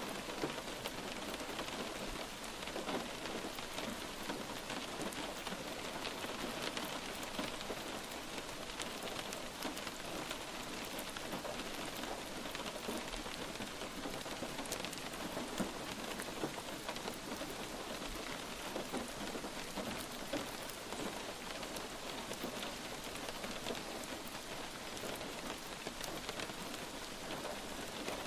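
Steady light rain, a continuous hiss of many small drops pattering on a surface.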